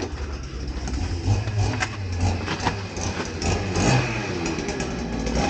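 Two-stroke chainsaw engine running, rising in revs now and then, around a second and a half in and again near four seconds.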